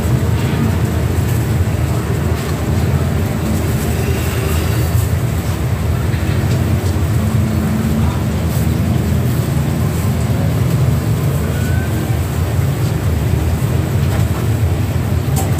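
Steady low rumble of background machine and traffic noise, like a running engine.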